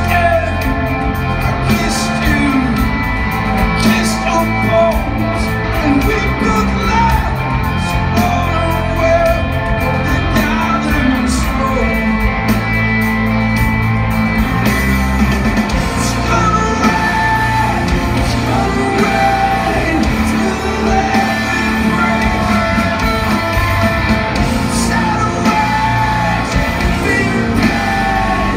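Live rock band playing loudly in a large hall: electric guitars, bass and drums with a singer's voice, heard from the audience.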